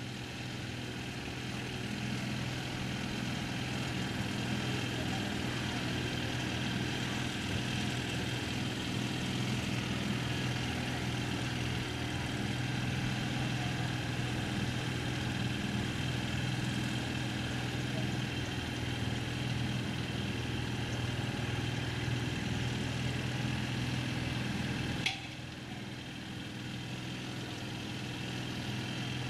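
Boat engine running steadily, a constant low hum with no change in speed. About 25 seconds in there is a sharp click, after which the sound is a little quieter.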